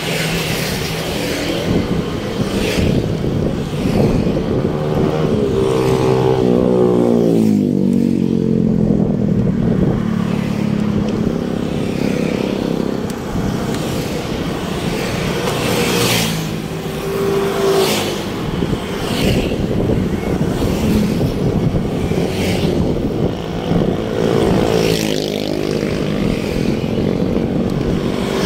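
Road traffic: motor vehicle engines passing close by, their pitch sliding down and up as they go past, over a continuous traffic din.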